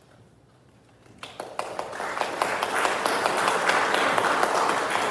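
Audience applauding: after about a second of quiet, scattered claps start and quickly swell into steady, full applause.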